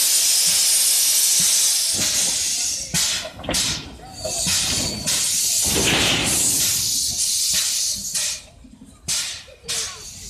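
FCL 353 narrow-gauge steam locomotive venting steam: a long, loud hiss for about the first two seconds, then a run of shorter hisses, with a few short, sharp ones near the end.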